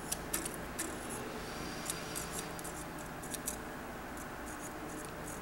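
Light metallic ticks and scraping of a steel feeler gauge blade being slid under a straight edge across an engine block's main bearing bores, checking main bore alignment. The ticks come irregularly, over a steady low hum.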